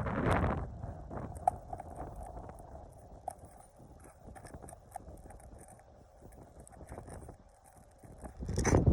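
Scattered light clicks and scrapes of work on an asphalt shingle roof, with a burst of rustling noise in the first half-second and again near the end.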